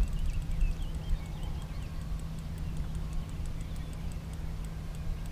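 Daiwa Certate spinning reel being cranked on the retrieve, giving a fast, even ticking, over a low rumble of wind on the microphone. Faint bird chirps sound in the background.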